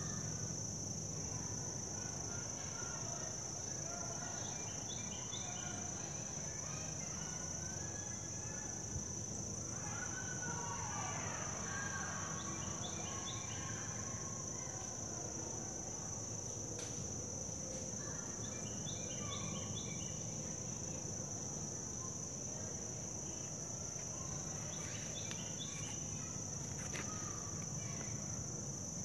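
Outdoor summer ambience: a steady, high-pitched drone of insects with birds calling several times in short chirping phrases.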